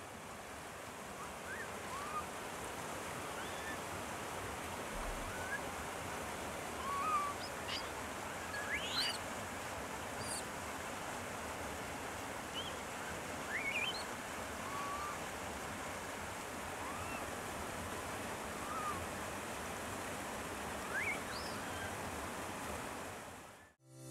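Steady rush of flowing water, with short high chirping calls scattered through it, about a dozen, some rising and some falling in pitch.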